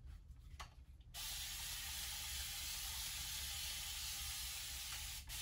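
Spray bottle misting water onto a curly wig, a steady hiss. There is a short spurt about half a second in, then one long spray of about four seconds that stops just before the end.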